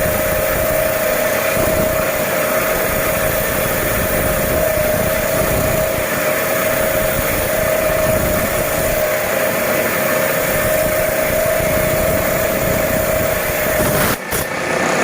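Gemstone-cutting machine for agate running, a steady loud mechanical whine with a constant pitch over a noisy rush; it dips briefly about a second before the end.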